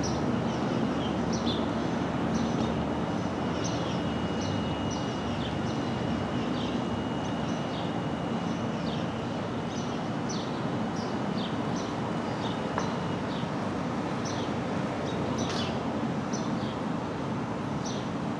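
SD40-2 diesel-electric locomotive's EMD 16-cylinder two-stroke 645 engine idling steadily, with birds chirping over it. A thin high whine sounds for several seconds in the middle.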